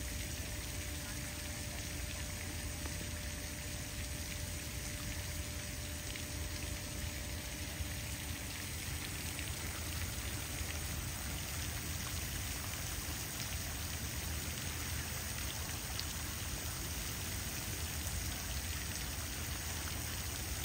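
Pond spray fountain running, its water falling back onto the pond in a steady splashing patter. A faint steady hum underneath stops about halfway through.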